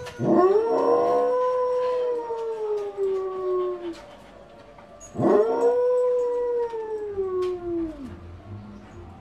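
A dog howling: two long howls about five seconds apart, each rising quickly, holding, then sliding down in pitch.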